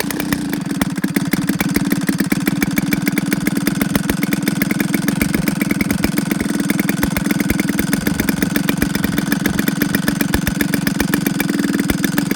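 Bull Engine BE 62cc two-stroke gasoline RC aircraft engine turning a 24x8 beechwood propeller, idling steadily with an even, rapid firing beat at about 1,300 rpm. The idle is smooth: the engine idles wonderfully.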